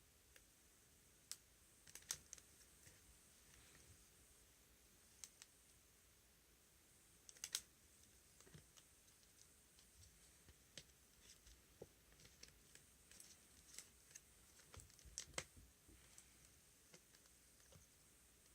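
Near silence with sporadic faint clicks and light taps, a few sharper ones about two, seven and fifteen seconds in.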